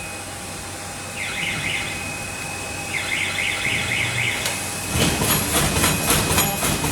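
A warbling electronic alarm tone sounds twice, then about five seconds in the Leader PL-145 paper lid machine starts up and runs with a rapid, regular mechanical clatter.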